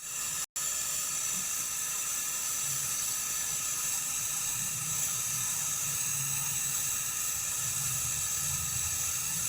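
Gas welding torch flame hissing steadily with a low rumble, held on a brazed copper refrigeration pipe joint to heat it red-hot so the joint can be opened.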